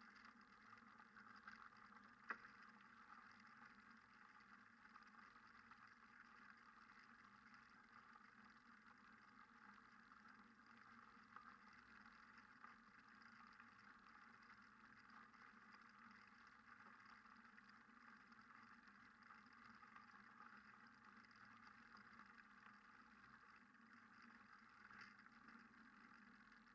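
Near silence: a faint, steady hiss, with a single click about two seconds in.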